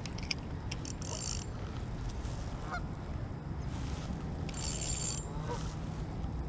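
Geese honking faintly a few times, over a steady low rumble, with two brief hissing rustles.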